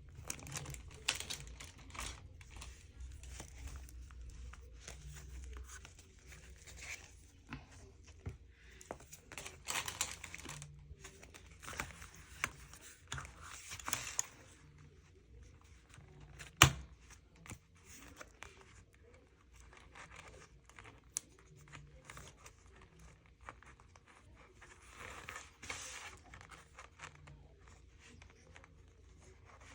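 Packaging and paper or plastic being handled: intermittent crinkling and tearing, with one sharp click a little past halfway.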